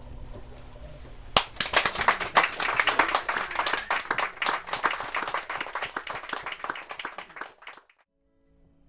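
The last notes of an acoustic guitar ring out, then a small audience claps and applauds for about six seconds. The applause cuts off suddenly, and soft acoustic guitar notes start near the end.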